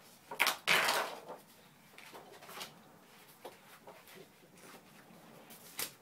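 Paper sheets of a scrapbooking pad being handled: a loud rustle about half a second in, then softer rustles and light taps, and a short sharp click near the end.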